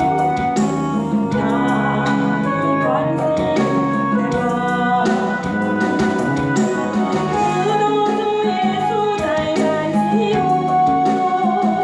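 Christian praise song from a hymn medley: a singing voice with held, sliding notes over instrumental accompaniment, playing continuously.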